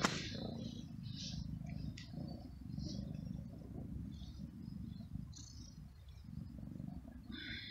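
Tabby cat purring steadily while being stroked, with short chirps from small birds over it and a longer bird call near the end.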